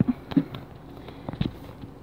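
Handling noise from a camera held in the hand: a few soft knocks and clicks, the clearest about one and a half seconds in, with light rustling and a brief murmur or two from the vlogger.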